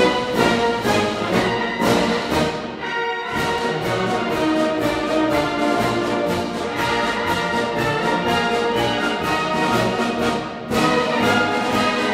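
Orchestral background music led by brass over a steady pulse of about two beats a second, with a short break just after three seconds and a louder entry near the end.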